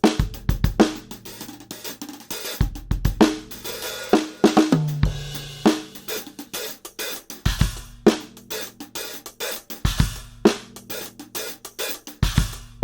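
Acoustic drum kit played in a groove: kick drum, snare, hi-hat and cymbals, with a lower drum ringing briefly about five seconds in. It is picked up dry through a Yamaha EAD50 microphone unit, with no effects, compression, EQ or limiter.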